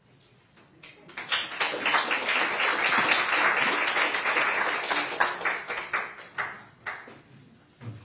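Audience applauding: clapping starts about a second in, swells, and dies away into a few last separate claps near the end.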